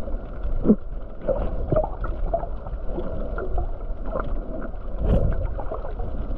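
Underwater ambience: a steady low rumble of water with many short, scattered clicks and brief gurgles.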